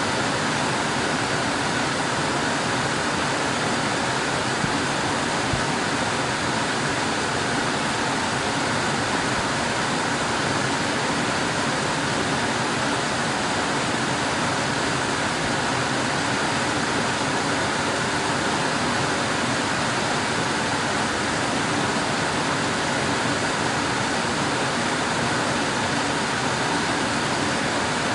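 Air conditioner running: a steady, even rush of blowing air with no change in pitch or level.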